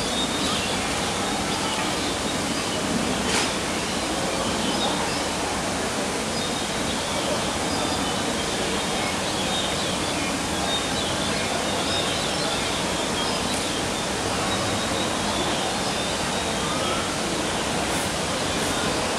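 Steady rush of running water, even and unbroken, with a few faint clicks.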